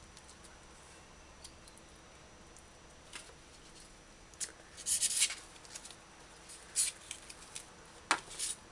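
A knife trimming a raw chicken thigh over a foam tray: scattered sharp clicks and wet scrapes, with a short hissing scrape about five seconds in.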